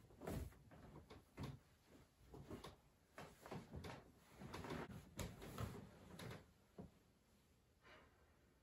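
Faint rustling of bedding and soft bumps against the bed as a person tosses and turns under the covers, dying away after about six seconds.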